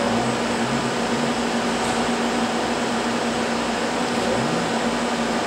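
Steady whirring of lab equipment cooling fans: an even hiss with a constant low hum underneath.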